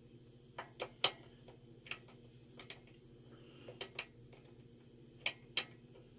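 Scattered sharp clicks and taps, about nine in all and some in quick pairs, as a bicycle pedal is spun into the crank arm threads by hand and a wrench knocks against the pedal and crank, over a faint steady hum.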